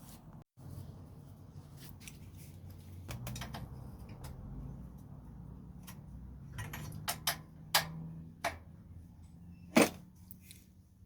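Scattered metallic clicks and knocks of hand work on a bicycle wheel, the loudest near the end, over a low steady hum.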